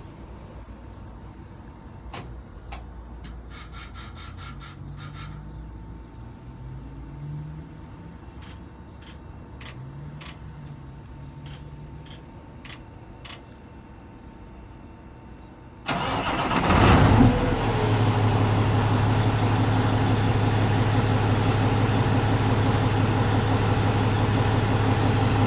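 Kenworth semi truck's diesel engine starting about two-thirds of the way through, then idling steadily with a low hum. Before it starts there are a few scattered clicks.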